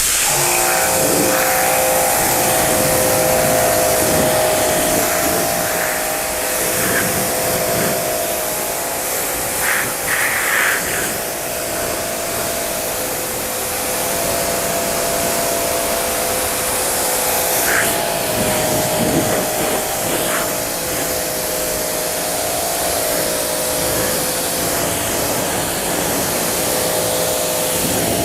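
Electric pressure washer running and spraying water onto the painted body panels of a car front end, a steady motor whine under the hiss of the spray. The spray sounds briefly louder a few times, around ten seconds in and again near the middle.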